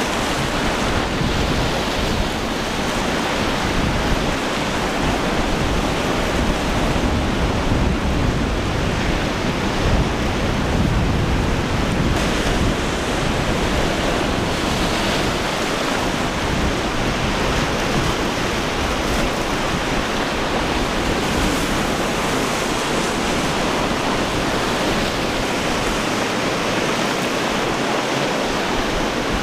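Surf and wind: a steady rushing wash of waves, with wind buffeting the microphone in an uneven low rumble.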